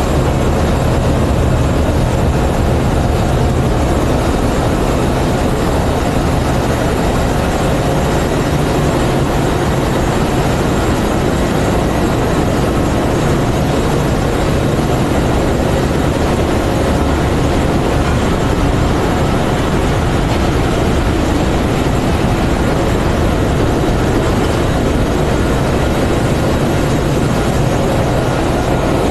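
Loud, steady din of a ship's engine room with its machinery running: a deep low rumble under a constant hiss, with a few faint steady tones above it.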